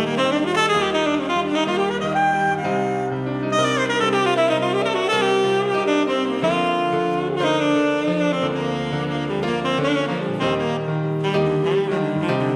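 Tenor saxophone playing a jazz instrumental solo with quick runs up and down, over sustained keyboard chords.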